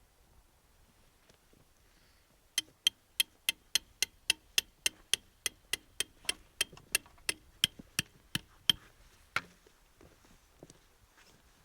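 A rapid, evenly spaced series of sharp clicks, about three a second for some six seconds, then one louder click.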